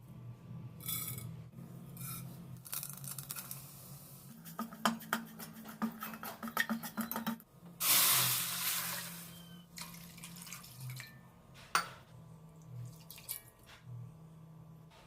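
Kitchen cooking sounds: utensils clicking and tapping, with a quick run of clicks, then a loud hissing rush about eight seconds in that fades away over a second or two. A single sharp knock follows, over a steady low hum.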